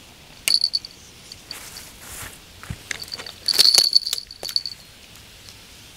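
Small bell on a homemade bite alarm jingling as the rod line twitches, signalling a bite. It gives a short jingle about half a second in, then a longer run of ringing jingles for about a second after three and a half seconds.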